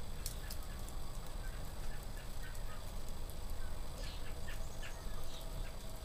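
Wood fire crackling in an open wood stove, with a sharp pop near the start, while birds call outside: a run of short repeated notes in the first half, then a quick burst of calls about four seconds in.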